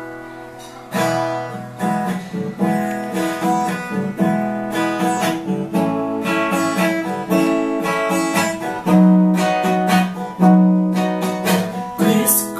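Steel-string acoustic guitar strummed in chords as an instrumental intro, the first full strum coming about a second in.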